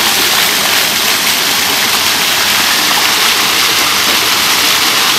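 Splash-fountain water jets spraying up from the paving and splashing back down: a steady, loud hiss.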